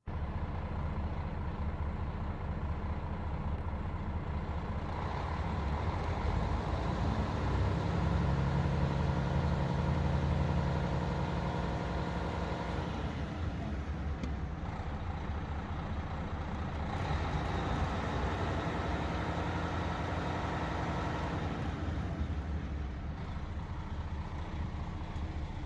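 Volvo D12 12-litre inline-six diesel engine idling steadily, warmed up.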